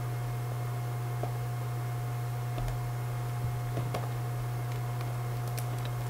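A steady low electrical hum with a faint, steady higher whine above it. A few soft clicks come about halfway through and again near the end, from a plastic DVD case being handled.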